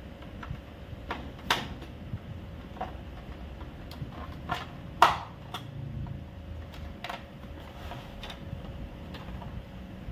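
Clicks and knocks of an Epson L3210 printer's plastic casing being handled and its cover worked loose, irregular, with one louder knock about five seconds in.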